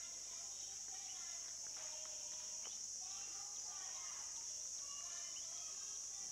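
Insects droning steadily at a high pitch, with faint, scattered bird chirps and calls over the drone.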